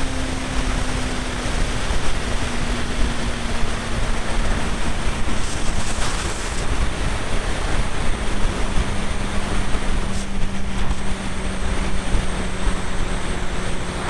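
Heavy wind rush over the microphone of a camera mounted on a motorcycle at motorway speed, with the engine's steady drone underneath, its pitch easing slowly lower.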